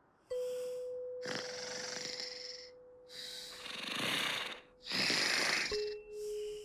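Cartoon snoring from a sleeping sloth: slow, breathy snores, each about a second long, rising and falling several times, over a held steady note that drops a little lower near the end.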